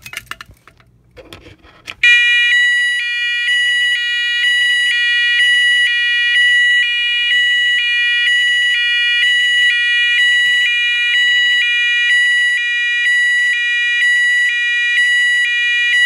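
Cheap fire alarm speaker-strobe sounding one of its tunes: a loud electronic tone alternating between two pitches about once a second, starting abruptly about two seconds in.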